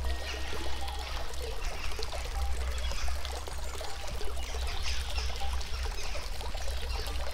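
Running water, an irregular splashing trickle like a stream, over a steady low rumble, with a few faint held tones in the background.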